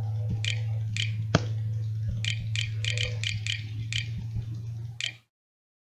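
Computer keyboard keys clicking in an irregular patter as someone types, over a steady low hum. The sound cuts off abruptly about five seconds in.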